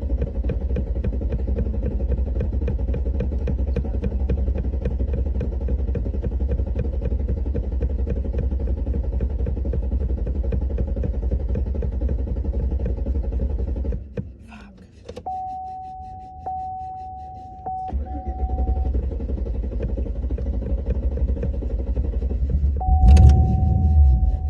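A truck's starter motor cranking the engine over in an even rhythm without it starting, for about fourteen seconds, then stopping. After a short pause with a steady high tone, the cranking starts again and grows louder near the end.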